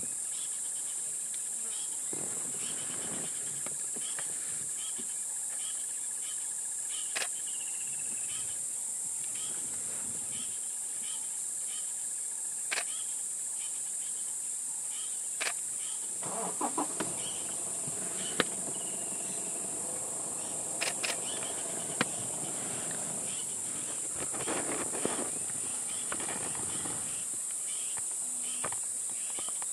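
Steady, high-pitched insect drone in African bush, with a short chirping call repeating about once a second and a few sharp clicks.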